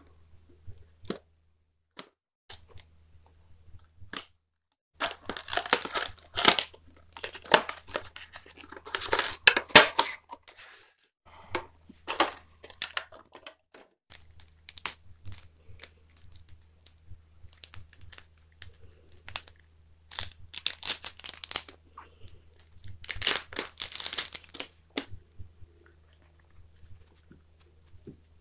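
Plastic wrapping being torn and crinkled off a stack of trading cards, in several crinkly bursts with small clicks of cards and cardboard being handled between them.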